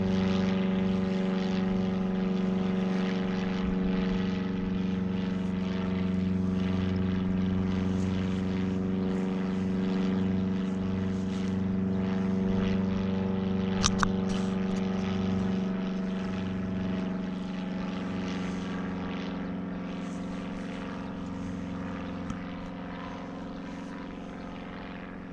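Propeller engine of a homebuilt Bagalini Colombo light aircraft droning steadily in flight, slowly fading as it moves off. A short sharp click about 14 seconds in.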